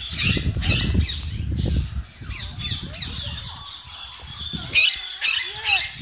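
Parrots squawking again and again in short, harsh calls, with a cluster of loud squawks near the end. For the first two seconds a low rustling rumble of handling noise sounds close against the microphone.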